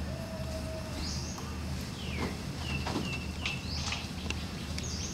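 Short, high chirping calls, several falling quickly in pitch, with a held single note for about a second near the start, over a steady low hum.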